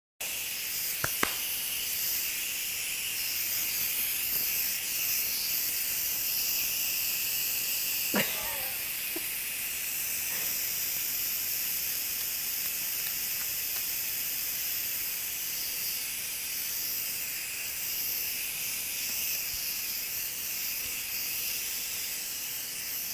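Instant Pot electric pressure cooker venting steam through its release valve, a steady hiss as its pressure is let out. A couple of faint clicks come about a second in, and a short falling squeak around eight seconds.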